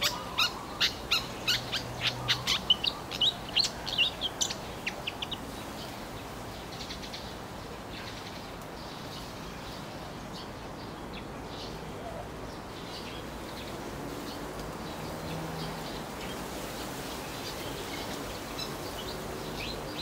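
A rapid run of short, sharp bird chirps, about three a second, for the first five seconds or so, then only faint scattered bird calls.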